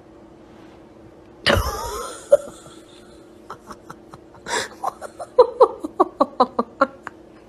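A sudden loud sound that falls in pitch about a second and a half in, then a person laughing in quick repeated bursts, about five a second.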